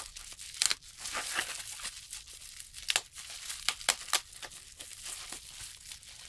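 Plastic bubble wrap crinkling and crackling as hands pull it open to unwrap a phone, with sharp louder crackles about a second in and again about three seconds in.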